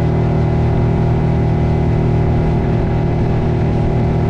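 Boat motor running steadily at a constant speed.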